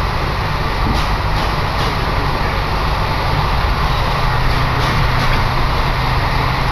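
Running noise heard from inside a moving passenger train on the JR Chitose Line: a steady rumble and hiss of wheels on rails, with a few faint clicks about a second in and again around five seconds.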